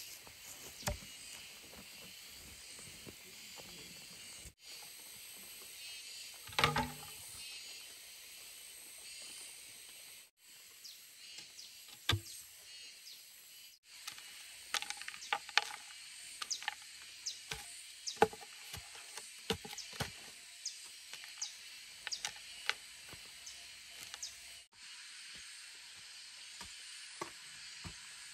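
Scattered light clicks and knocks of hand work on bamboo over a steady high hiss, with one louder, briefly ringing knock about a third of the way in and a quicker run of clicks through the second half.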